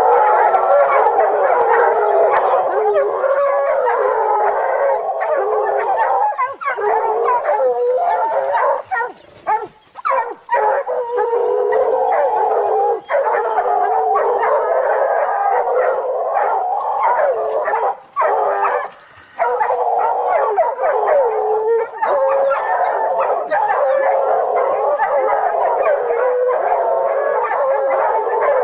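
Several hounds baying and howling almost without pause, dogs holding a leopard at bay on a branch. There are short breaks about nine and eighteen seconds in.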